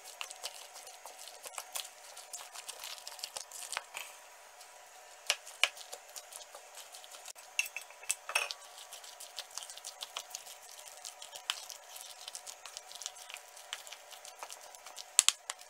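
A utensil scraping and clinking against a stainless steel mixing bowl as chopped vegetables are stirred into a thick, wet chili paste, with irregular clicks throughout.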